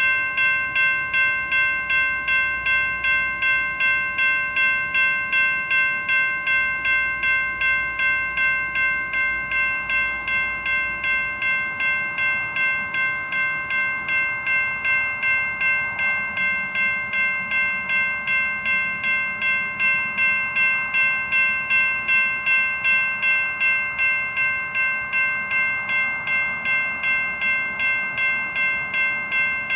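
Safetran electronic railroad crossing bell ringing in a steady, even rhythm of about two strikes a second, each strike a bright metallic ding. It keeps ringing because a train is standing in the crossing.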